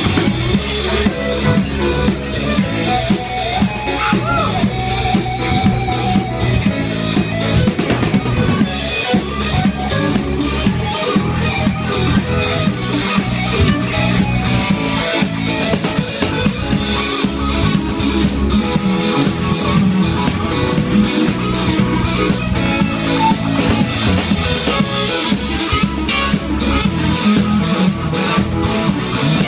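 Live band playing a funk-rock groove: electric guitar over bass guitar and a drum kit keeping a steady, busy beat.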